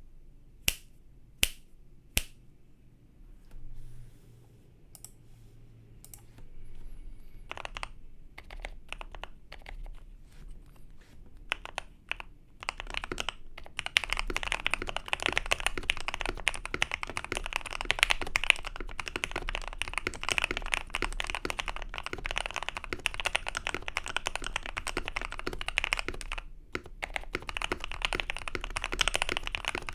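Mechanical keyboard keystrokes: three sharp, loud single presses at the start, then scattered individual key presses. From about halfway on there is dense, fast typing, which breaks off for a moment near the end and then resumes.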